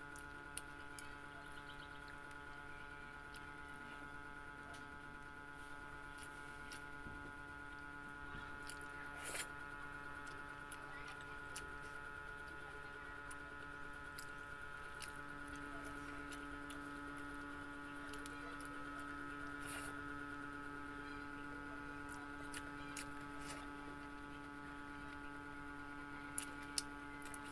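Eating sounds of tofu and rice eaten by hand: soft chewing and a few sharp mouth clicks and smacks, over a steady electrical hum of several held tones. A second low tone joins the hum about halfway through.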